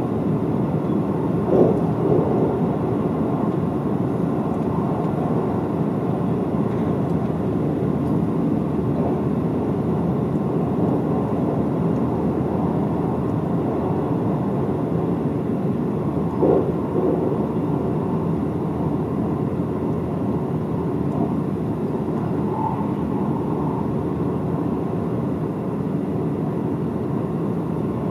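Seibu 001 series Laview electric train running at speed: a steady rumble of wheels on rail, with a short thump about a second and a half in and another about sixteen seconds in.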